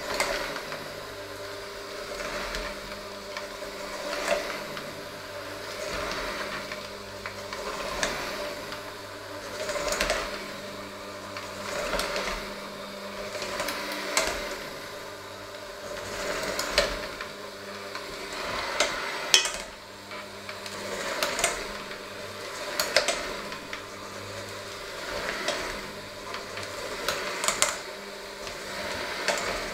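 Electric hand mixer running steadily as it works a thick dough in a stainless steel bowl. Its motor hum swells and eases about every two seconds as the load changes, with the beaters knocking and scraping against the bowl now and then.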